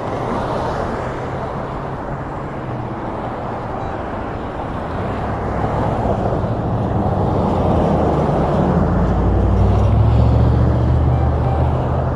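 Road traffic noise: a motor vehicle's engine and tyres growing louder as it passes, loudest about nine to eleven seconds in, then easing off.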